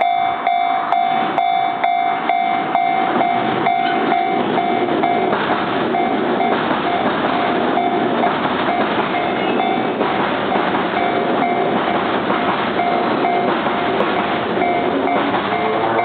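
Japanese level-crossing warning bell ringing at about two strikes a second, while an E231-series electric train rolls across the crossing with rumbling wheel and rail noise that swells through the middle.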